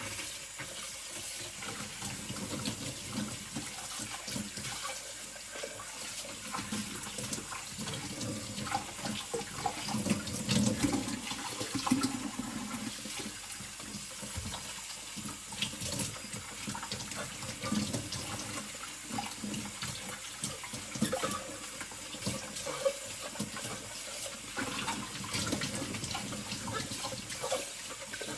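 Water running from a kitchen tap into a sink while a stainless steel skillet is scrubbed, with scattered clunks and scrapes of the pan. The tap comes on right at the start.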